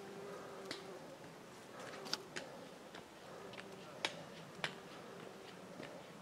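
Faint outdoor quiet: the thin buzz of an insect flying among the fireweed, clearest in the first second, with scattered sharp ticks and clicks.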